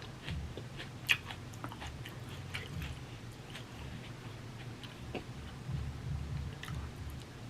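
A person chewing food close to the microphone, with irregular wet mouth clicks and smacks and one sharper click about a second in.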